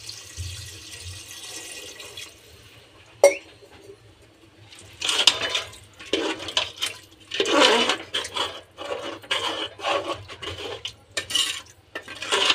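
Water pouring in a stream into an aluminium pressure cooker of mutton curry, stopping about two seconds in. A single sharp knock follows, then a steel ladle stirring the wet curry and scraping the pot in uneven strokes.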